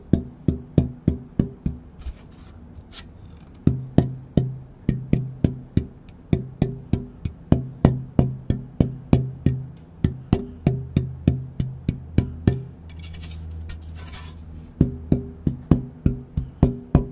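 Bearclaw Sitka spruce guitar soundboard being tap-tested: quick runs of taps, about four a second, each ringing with a clear low note. The note shifts from run to run as the board is tapped in different spots, one piece of wood giving several notes.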